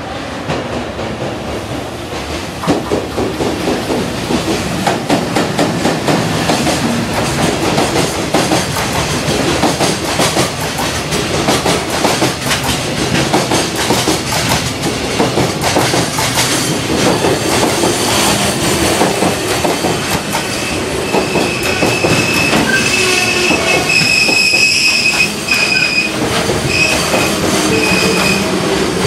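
A JR Freight container train running in along the platform: the wheels of the Koki container wagons clatter steadily over the rail joints as the cars roll past. From about two-thirds of the way through, a high wheel squeal comes and goes as the train slows for its scheduled operational stop.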